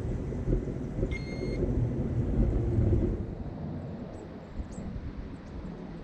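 Strong wind buffeting the microphone, a low rumbling roar that eases about halfway through. A short, high electronic beep sounds about a second in.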